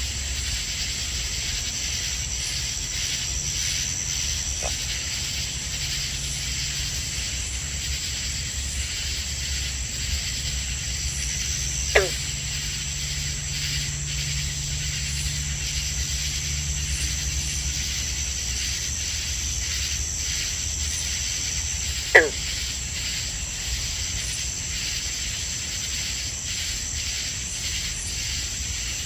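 Night chorus of crickets and katydids at a summer pond: a steady high-pitched trilling with a faint rhythmic pulsing, over a low hum. Twice, about twelve and twenty-two seconds in, a short call sweeps sharply downward in pitch and stands out as the loudest sound.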